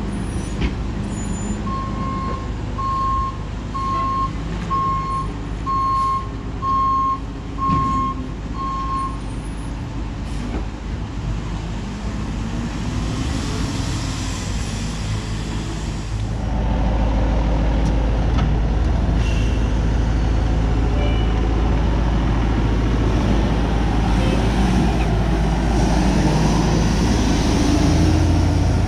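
Peterbilt garbage truck's backup alarm beeping about once a second, eight beeps, over its running diesel engine. A hiss follows, then about halfway through the engine sound steps up abruptly and stays loud.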